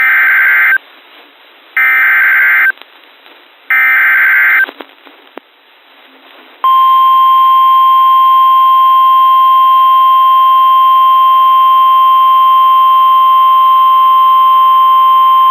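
NOAA Weather Radio alert signal: three short, buzzing SAME data bursts about two seconds apart, which encode the header of a new warning, then the steady 1050 Hz warning alarm tone, held for about nine seconds to sound the alert.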